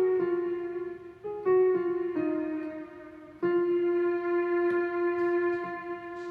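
Farfisa G8 electronic keyboard playing an improvised single-line melody in a sustained voice: a few notes in turn, then a long held note from about halfway that fades away near the end.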